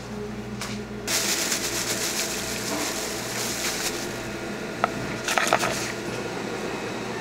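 Sliced green onions rustling and crunching as they are tossed in a plastic bowl, with sharp clicks of metal tongs a few times near the middle, over a steady kitchen hum.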